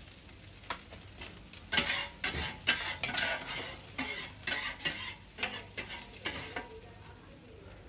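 Two metal spatulas scraping and clacking on a flat iron griddle as egg fried rice is stirred and tossed, over a steady sizzle. The quick strokes stop near the end, leaving the sizzle.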